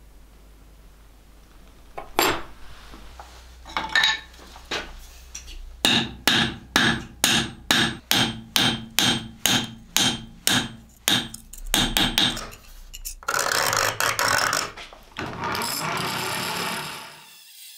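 Hand hammer striking steel on an anvil: a few spaced blows, then a steady run of ringing strikes at about two to three a second. From about thirteen seconds in, the steel blade is ground against a pedal-powered grinding wheel in two stretches of steady rasping, which cut off just before the end.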